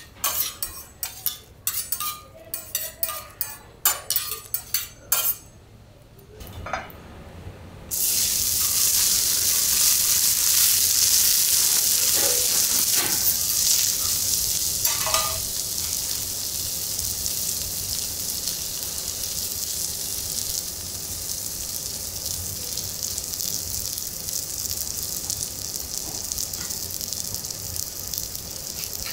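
Metal utensils clinking and tapping on a teppanyaki griddle, then a loud sizzle that starts abruptly about eight seconds in as Sendai-beef chateaubriand sears on the hot steel plate, easing slightly after a few seconds and continuing steadily.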